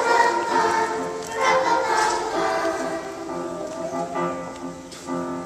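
Young children's choir singing a song with instrumental accompaniment.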